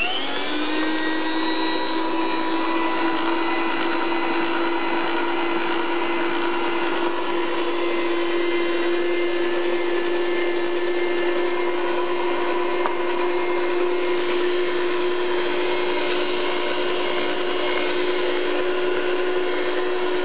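Rival electric meat grinder's motor switched on, spinning up within about a second, then running steadily with an even hum.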